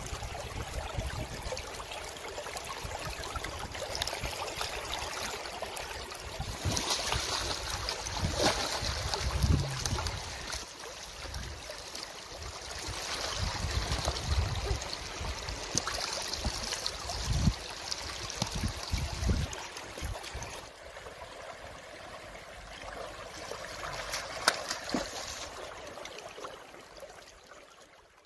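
Shallow river water flowing and splashing around a wading man as baskets are moved through it, louder and more splashy through the middle stretch, with scattered small knocks.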